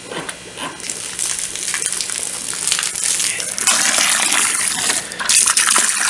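A garden hose spray nozzle jets water into a plastic bucket of sand to rinse it, a hissing spray that builds over the first seconds and gets louder about halfway through, with a brief dip near the end.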